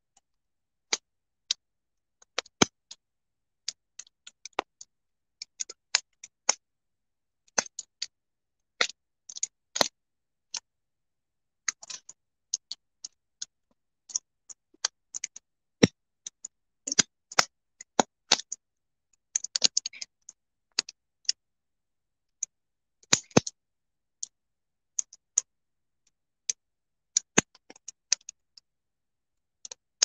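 Fire crackling: irregular sharp pops and snaps, sometimes several in quick clusters, with silence between them.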